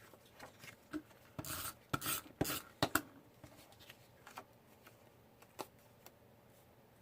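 Paper pieces being handled and pressed onto a scrapbook page: a burst of rustling and sharp taps against the tabletop between about one and a half and three seconds in, then a few scattered small clicks.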